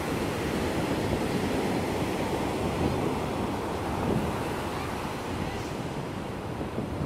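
Ocean surf breaking and washing up a beach in a steady, continuous rush.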